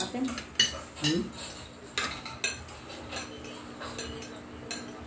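Metal spoons and forks clinking and scraping against plates and glass serving dishes as people eat, in a scattered series of sharp clinks.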